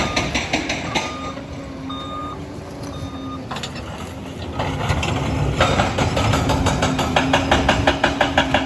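Liebherr 746 crawler dozer running, its reversing alarm beeping about once a second over the engine and the fast, regular clatter of its steel tracks. The beeping stops about a third of the way through, and the track clatter and engine then grow louder.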